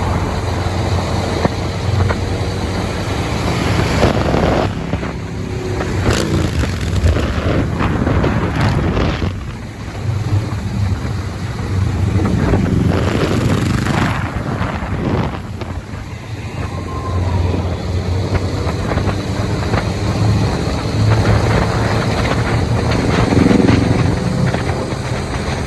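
Motorcycle engine running loudly, with heavy wind noise buffeting the microphone.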